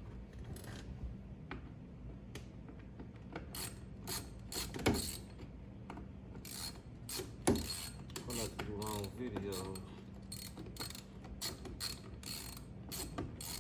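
Hand ratchet with a T27 Torx socket clicking in repeated runs as it turns out the two bolts behind the steering wheel. The bolts are captive, so they loosen but don't come out, and the ratcheting goes on and on.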